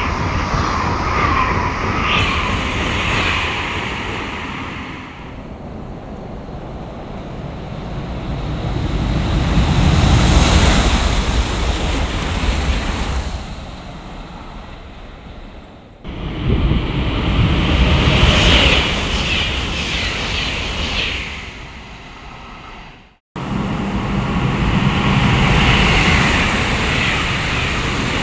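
High-speed trains going by on a station's tracks, in several short cut-together clips. There is a rushing noise that swells to a peak and fades away, and wavering high-pitched whines from the wheels and brakes in some stretches.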